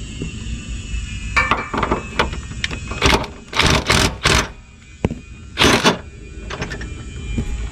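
Hand tools working on the rear IRS subframe bolt: a socket wrench clicking in irregular runs, with several short, loud scrapes and clanks of metal. The bolt is being backed off to let the subframe drop for clearance.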